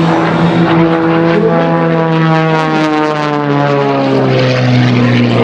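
MXS-RH aerobatic monoplane's 370-horsepower, 540-cubic-inch piston engine and propeller flying past. The engine note drops in pitch about three to four seconds in as the plane goes by.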